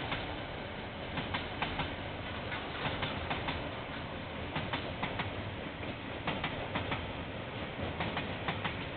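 KiwiRail freight train of container wagons rolling past, a steady rumble with the wheels clicking over the rail joints, often in pairs.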